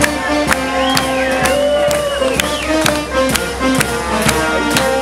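A brass band playing a lively tune, with a crowd clapping along in time, about two claps a second.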